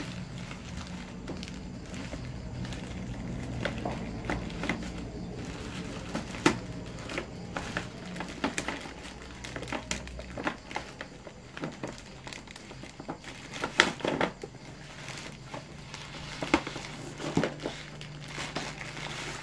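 Thin plastic carrier bag crinkling and rustling as it is pulled and worked open by hand, with sharp crackles scattered throughout.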